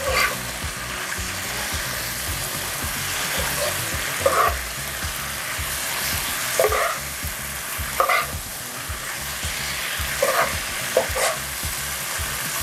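Squid and holy basil leaves sizzling in a non-stick wok while a spatula stir-fries them, with several short scrapes of the spatula against the pan.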